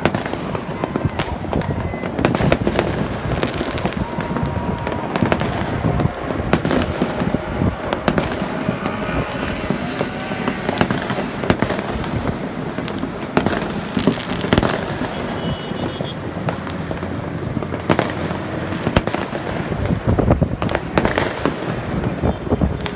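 Fireworks going off in a continuous barrage: dense crackling and popping with many sharp bangs, some louder single booms standing out, and no let-up.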